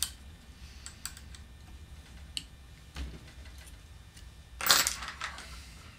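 Small metallic clicks and ticks as a pin-type chuck key loosens the jaws of a small lathe's keyed chuck and a thin steel oboe key rod is handled and drawn out, with one louder brief scrape near the end, under a low steady hum.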